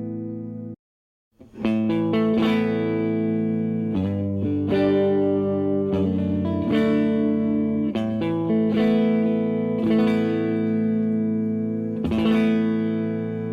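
Electric Telecaster guitar played through an amp: a chord cuts off abruptly under a second in, and after a short silence a run of ringing strummed chords follows, changing about every one to two seconds.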